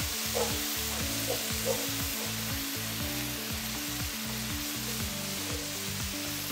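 Onions and tomato paste frying in hot oil in a nonstick wok, sizzling steadily as a bamboo spatula stirs and scrapes through them, with a few small scrapes in the first two seconds.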